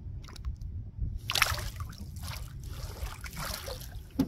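Water splashing and sloshing against a canoe's side as a hand swishes a redfish through the water, in a run of splashes from about a second in. A short knock near the end.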